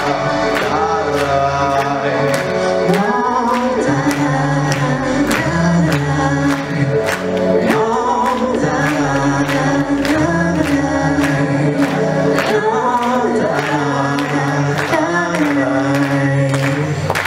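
A male and a female singer performing a pop song duet through handheld microphones over a recorded backing track, with a steady beat about twice a second and a bass line, amplified through the PA.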